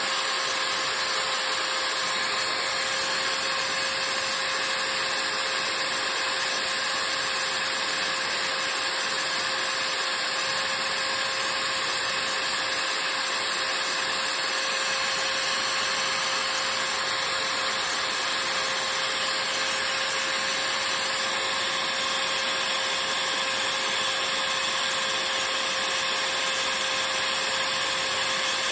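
Small power-tool motor running steadily with a constant whine, spinning the brass head of a 12-gauge shotgun shell while abrasive paper is held against it, sanding the brass.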